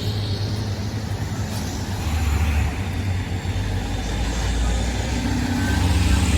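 Diesel engine of a UD Quester heavy truck working up a climb. It is a steady low drone whose pitch steps down about two seconds in and again a second or so later.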